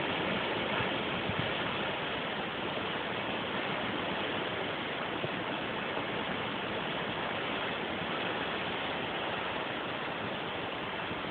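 Steady, even rushing hiss of a storm outside, wind and rain, with no distinct events.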